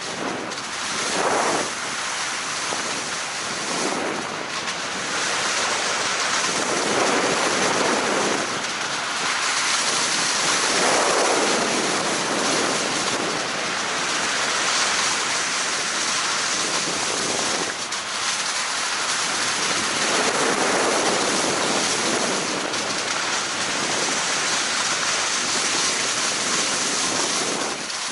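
Steady hiss and scrape of a downhill slide on packed snow, swelling and easing with each turn every few seconds, with wind rushing over the microphone.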